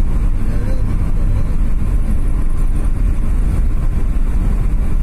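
Car running on the road, a steady, loud rumble of engine and road noise.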